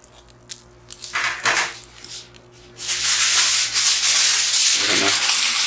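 Aluminium foil being pulled off a roll: a loud, steady rough rustle that starts about three seconds in, after a few light knocks and a short rustle.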